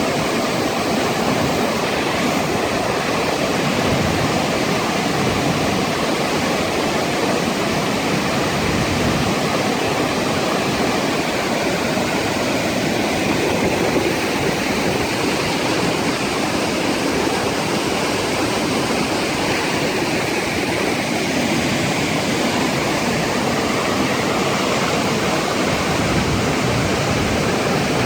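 Flash-flood water rushing steadily down a desert canyon, a loud unbroken rush of running water.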